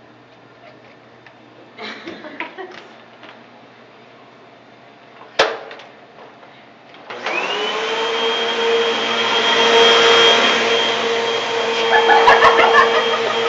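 A sharp click about five seconds in, then a Eureka vacuum cleaner's motor starts about seven seconds in, its whine rising quickly and settling into a steady run with a high tone over a rushing hiss. There is some crackling near the end.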